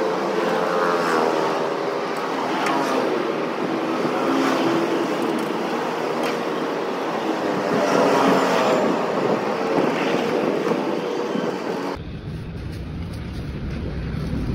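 Street traffic with passing motor vehicles, their engines rising and falling in pitch. About twelve seconds in it cuts suddenly to a deep, steady low rumble.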